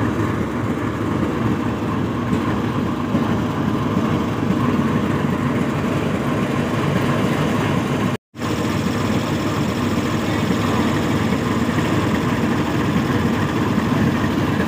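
Pakistan Railways GEU-40 4500-horsepower diesel-electric locomotive's engine idling steadily close by. The sound cuts out for a split second about eight seconds in.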